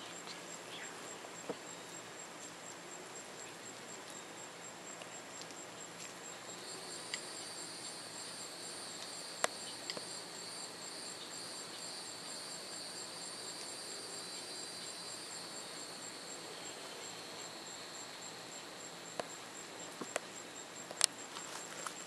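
Insects calling: a cricket trilling steadily in rapid high-pitched pulses, joined for about ten seconds in the middle by a second insect's louder continuous buzz. A few sharp clicks stand out, the loudest near the end.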